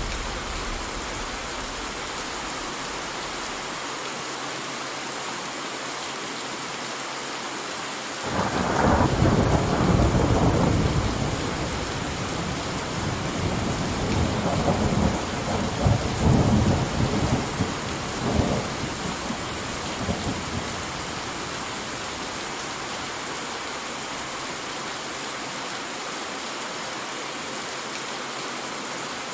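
Steady rain, with a long roll of thunder starting about eight seconds in. The thunder rumbles through several loud peaks for some twelve seconds, then fades back to the rain alone.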